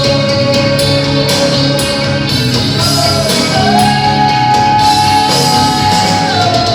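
A rock band playing live, with guitar under a long held melodic note that glides up about halfway through and holds at the higher pitch.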